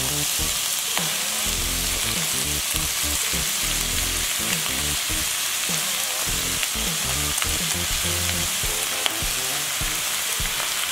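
Onions and bell peppers frying in oil in a wok, sizzling steadily as thin slices of raw beef are slid in off a plate with a spatula, with a few small clicks.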